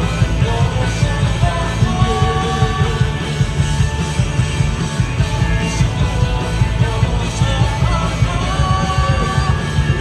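Live rock band playing loud: heavy bass and drums under a lead vocal singing long held notes that bend and slide.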